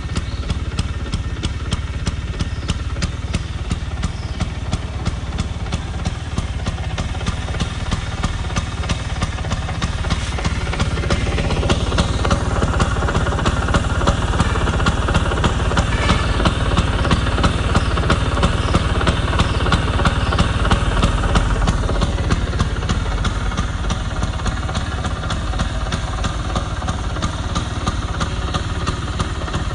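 Vespa 150 scooter's single-cylinder two-stroke engine running at idle. About eleven seconds in it runs faster and louder for some ten seconds, then settles back to idle.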